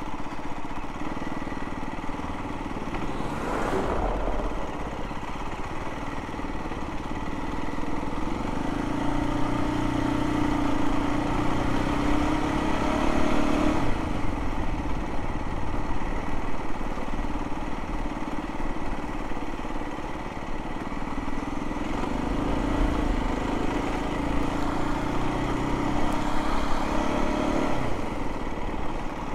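Aprilia RS 125 GP Replica's single-cylinder four-stroke engine pulling the bike along at low speed over cobblestones, its pitch climbing and falling back twice, with tyre rumble from the cobbles underneath.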